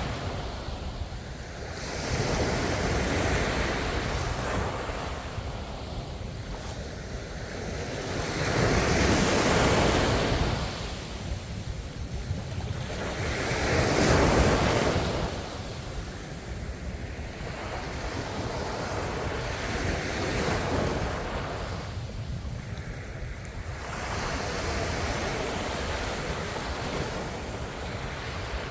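Ocean waves breaking and washing in, the surf swelling and ebbing every few seconds, loudest about nine and fourteen seconds in, over a steady low rumble.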